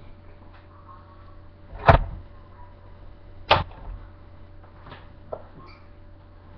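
Two sharp knocks about a second and a half apart, then a fainter tap, over a low steady hum.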